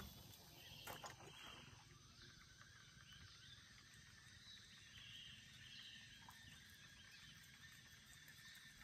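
Near silence: faint outdoor wildlife ambience, a steady insect drone with short chirping calls repeated here and there, and one small click about a second in.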